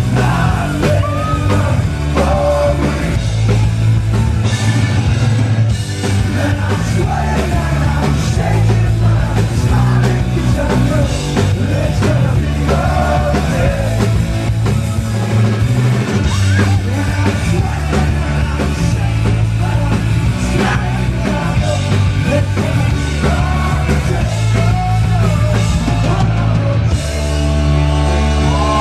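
A live rock band playing loud and amplified: a singer over electric guitars, bass and drums.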